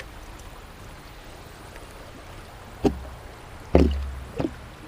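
Steady rush of flowing river water, with three sharp knocks in the second half, each followed by a short low rumble.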